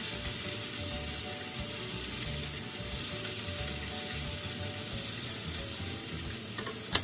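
Yakisoba noodles and sausages sizzling in a frying pan on a gas stove while being stirred. Two sharp knocks near the end.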